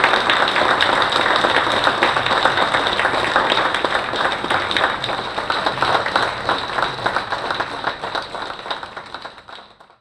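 Audience applauding, many people clapping together, fading out to silence over the last couple of seconds.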